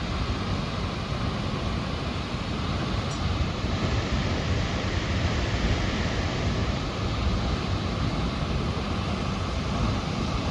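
Snoqualmie Falls, a large waterfall, sending up a steady, unbroken rush of falling water.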